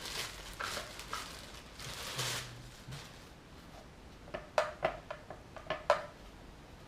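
Packaging rustling as electronic drum kit parts are handled during unboxing, followed over about two seconds by a quick run of light clicks and knocks as hard plastic pieces are moved or set down.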